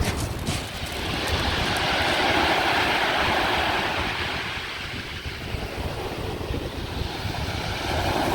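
Surf breaking and washing up the beach, swelling to a peak about two to three seconds in and again near the end, with wind buffeting the microphone as a low rumble.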